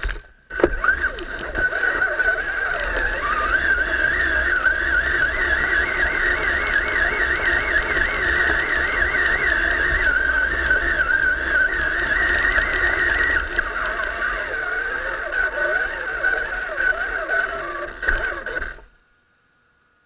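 Electric motor and gear drive of a radio-controlled off-road truck whining continuously, the pitch wavering up and down as the throttle is worked, over rumble from the truck bouncing across the trail. It dips briefly just after the start and cuts off suddenly near the end.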